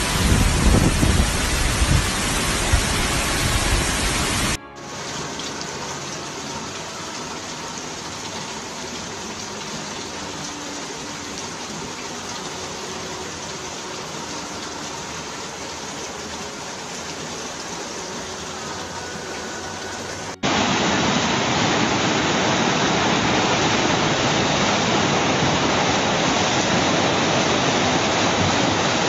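Muddy flash-flood water rushing in a torrent, a steady rushing noise with low rumbling in the first couple of seconds. It cuts abruptly to a quieter flow about four and a half seconds in, and back to loud rushing water about twenty seconds in.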